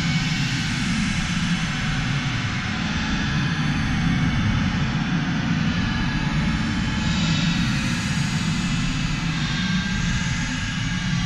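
Dark space ambient music: a steady, engine-like rumbling drone with a hissing wash above it and faint high tones drifting in and out.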